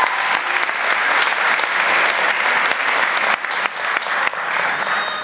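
A large crowd applauding: dense, steady clapping from many hands that starts to thin out near the end.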